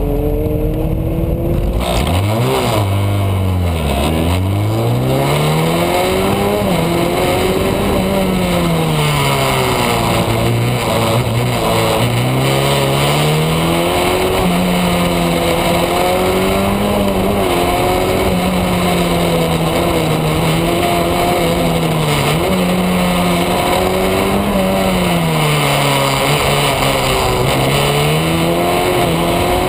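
Open-wheeled car's engine driven hard through an autocross course. It accelerates from the start about two seconds in, drops in pitch at a shift, then rises and falls again and again with throttle and braking between the cones, over a steady rushing noise.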